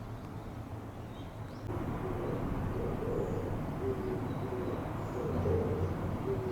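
Oriental turtle dove cooing: short, low hooting notes in repeated phrases, starting about two seconds in, over a steady background rumble.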